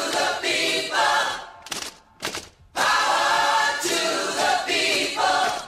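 A cappella vocal jingle: a group of voices singing in harmony, with one long phrase, two short clipped notes, then the phrase again.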